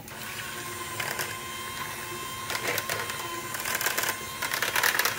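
KitchenAid electric hand mixer switched on and running steadily, its wire beaters mashing potatoes with milk in a stainless steel saucepan. The beaters clatter and tick against the pan more and more from about two and a half seconds in.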